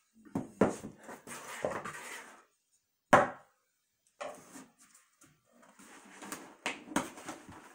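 A magic wand tapping and knocking on a top hat, with rustling as the hat is handled and turned; one much louder knock about three seconds in.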